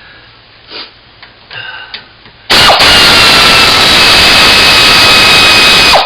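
A power tool runs for about three and a half seconds, backing out a 9/16 brake caliper bolt. It starts abruptly about two and a half seconds in, is very loud with a slightly falling whine, and stops just before the end. A few light clicks of handling come before it.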